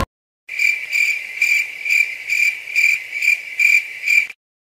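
Cricket chirping as an inserted sound effect: a steady run of about two high chirps a second, starting and stopping abruptly out of dead silence.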